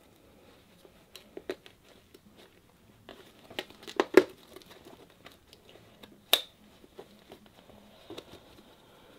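A motorcycle helmet's fabric inner padding and a Bluetooth intercom speaker cable being handled and pushed into place: rustling and crinkling with scattered sharp clicks and taps. The loudest clicks come as a pair about four seconds in and once more about six seconds in.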